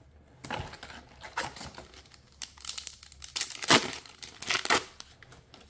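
Foil trading-card booster pack wrapper crinkling as it is torn open by hand, in irregular crackles, the loudest a little past the middle.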